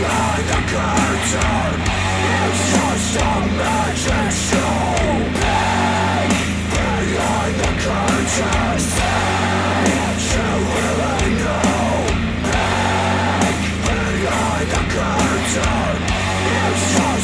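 Hard-edged rock track with shouted, sung vocals over distorted instruments and a steady bass line, played back through Polk Audio bookshelf speakers driven by a Yamaha R-S202 receiver.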